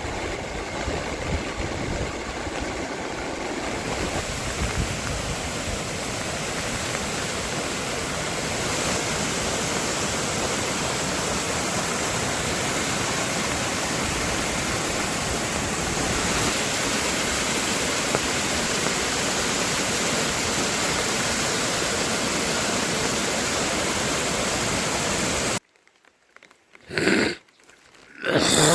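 Heavy rain falling, a steady dense hiss that cuts off abruptly near the end, followed by two brief louder sounds.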